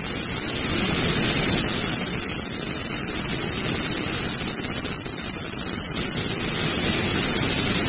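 Steady hiss of radio static from a weather-radio receiver between broadcast messages.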